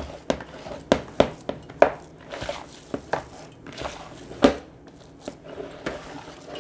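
Kitchen work at a mixing bowl on a counter: about a dozen irregular sharp knocks and clatters of hands and utensils against the bowl and countertop.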